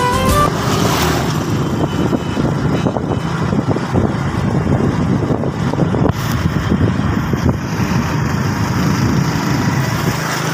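Motorcycle running at road speed, heard from the moving bike: a steady low engine hum under a dense rush of road and wind noise. A tail of background music stops in the first half second.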